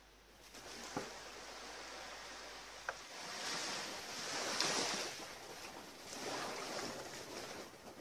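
Small waves washing onto the shore, a soft hiss that swells twice, about three seconds in and again near six seconds. Two faint clicks come in the first three seconds.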